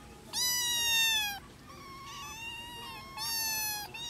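Kittens meowing: a loud, high-pitched meow, then a quieter, longer one, then another loud meow near the end.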